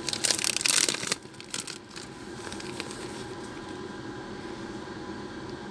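Clear plastic bag crinkling and rustling as a phone box is pulled out of it, loudest in the first second, with a few softer rustles after. A steady low hum runs underneath.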